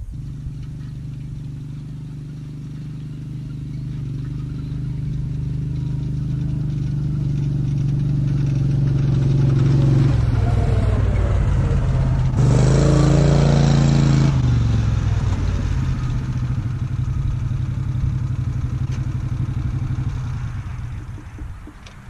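Side-by-side utility vehicle's engine running as it drives, growing louder over the first ten seconds. It swings down and back up in pitch at its loudest, between about ten and fourteen seconds in, then runs steadily and fades out near the end.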